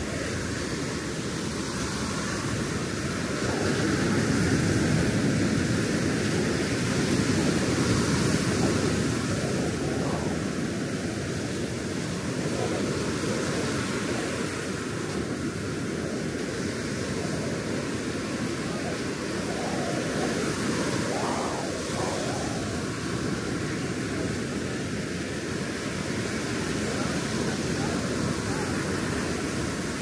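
Ocean surf washing up the beach: a steady rushing wash that swells louder a few seconds in, then settles.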